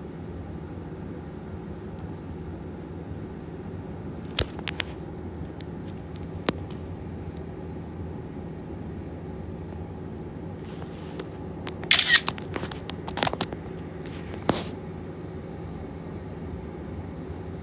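Steady low hum with a few scattered sharp clicks and knocks, the loudest a quick cluster about twelve seconds in.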